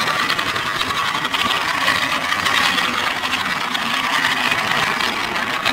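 Steady, fast rattling whir of a die-cast Take-n-Play toy train running along the plastic spiral track of a Take-n-Play tower.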